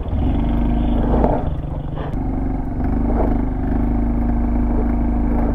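Honda Dax125's small single-cylinder engine revving high and steady under load on a steep, slippery dirt climb, easing briefly about a second and a half in before picking back up.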